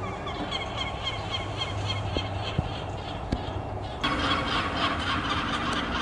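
Adult lesser black-backed gulls calling in rapid runs of short, repeated notes, getting louder about four seconds in.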